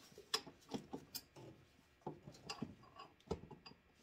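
Pliers clicking and tapping against a small metal clamp as it is worked off a coolant hose: faint, irregular sharp clicks, a few a second.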